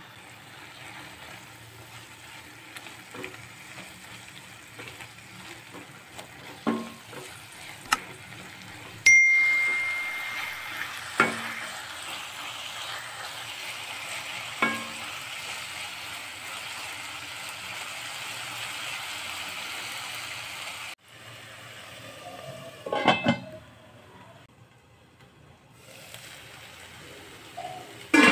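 Onion, capsicum and tomato masala sizzling in a non-stick kadai while a steel spoon stirs it, knocking against the pan several times; one knock, about nine seconds in, leaves a clear ringing tone for a second or so. A quick clatter of spoon strokes comes a few seconds before the end.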